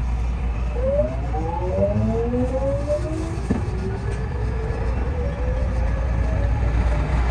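A 207 series electric commuter train pulling away, heard from the driver's cab: its traction inverter and motors give a whine of several tones that climb steadily in pitch for a few seconds as it accelerates. A steady low running hum lies under it, and a single click sounds about halfway through.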